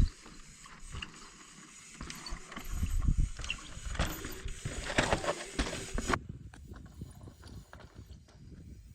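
Mountain bike on rocky trail: irregular knocks, clicks and rattles from the tyres and bike over rock, busiest a few seconds in.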